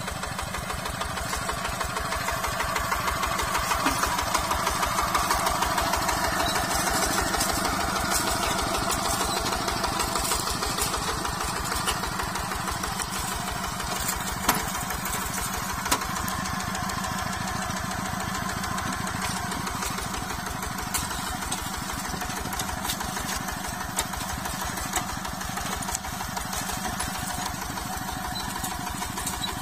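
Single-cylinder diesel engine of a two-wheel hand tractor running steadily under load while ploughing a flooded rice paddy, a rapid even chugging. It swells louder a few seconds in, then eases back, with a couple of sharp clicks about halfway through.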